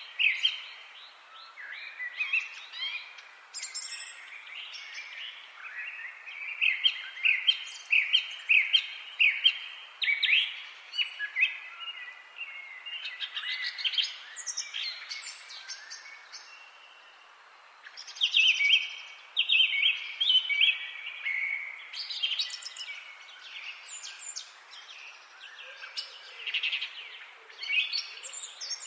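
Woodland songbirds singing: short chirping song phrases from several birds come and go over a faint steady hiss of forest ambience, with a brief lull a little past halfway.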